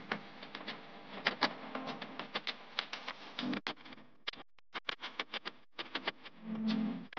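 A fast, uneven patter of small clicks and light splashes, about four a second, from a live-steam model paddlewheel boat running on the water, with a brief low hum about three and a half seconds in and again near the end.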